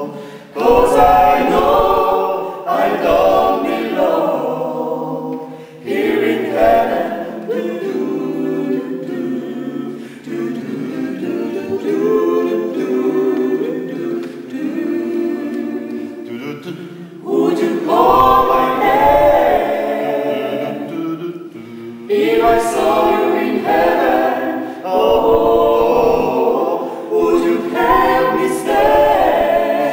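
A cappella vocal ensemble of mixed men's and women's voices singing in harmony, in phrases that swell and fall back several times.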